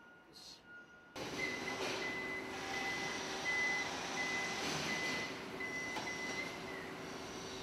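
An electronic warning beeper on car assembly-line equipment, sounding a steady high beep about twice a second over the hum of the plant, stopping near the end.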